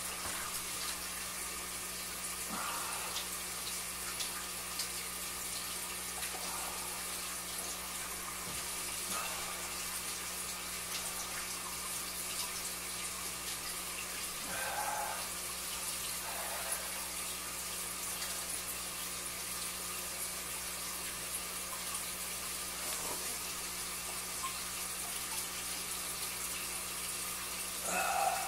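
Steady running-water trickle with a constant low hum, from the aquarium's water circulation running. A few faint, brief sounds break in now and then.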